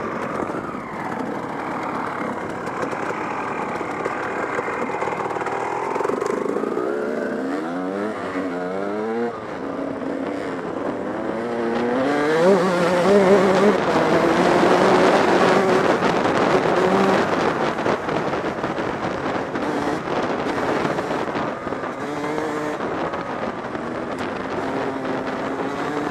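Enduro dirt bike engine heard from the rider's own machine, revving up and down as it is ridden along a dirt track, its pitch rising and falling repeatedly and loudest about halfway through.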